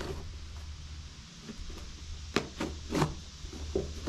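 Small cardboard box being handled and its flaps pulled open: a few short scrapes and crackles in the second half, over a steady low hum.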